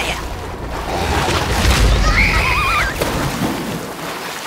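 Cartoon fox's high, wavering cry about two seconds in, over a low rumble that swells just before it.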